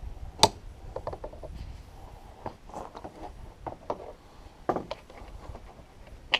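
Irregular clicks and knocks of hand tools and parts being handled during work on a truck's air filter housing, the sharpest about half a second in.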